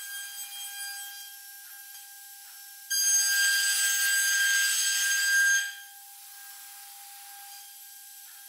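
CNC router spindle whining steadily at high pitch. From about three seconds in to past the middle, the bit cuts into the wooden board with a loud rasping noise, then only the spindle's whine is left.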